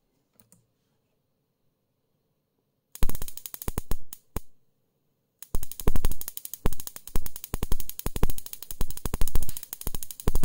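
Homebrew 30 kV DC power supply arcing over, a rapid ratchet-like train of sharp cracks. It starts suddenly about three seconds in, breaks off for about a second, then runs on until it cuts off at the very end. This is the flash-over fault that keeps the supply from reaching its rated voltage, which the owner places in the transformer.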